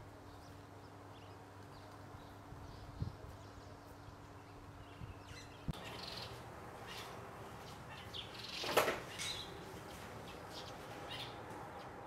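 Faint outdoor garden ambience with birds chirping: scattered short high chirps and tweets that come more often in the second half, over a low steady hum that stops about halfway. A brief louder noise stands out about nine seconds in.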